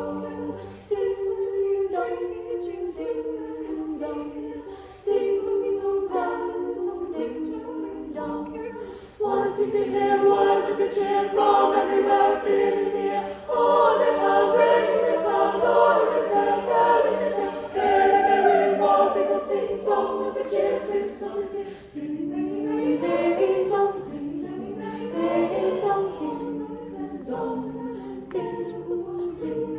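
Choir singing a cappella: several voice parts sustaining and moving together, swelling louder about a third of the way in and softening again about three-quarters of the way through.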